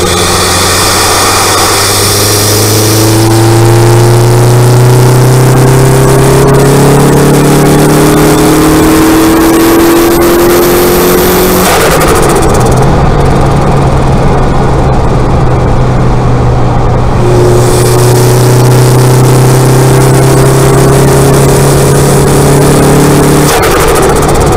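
Turbocharged four-cylinder engine of a Mk1 Mazda MX-5, fitted with a TD04 turbo, running loud and close up at raised revs. The pitch climbs slowly for about ten seconds, drops back suddenly about halfway through, holds steady, then climbs again and drops near the end.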